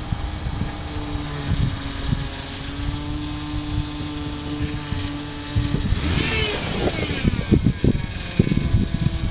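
Toyota Land Cruiser 90 series engine running steadily at idle as the 4x4 crawls through a deep rut. About six seconds in, a louder, higher-pitched burst is heard, followed by uneven low thumps.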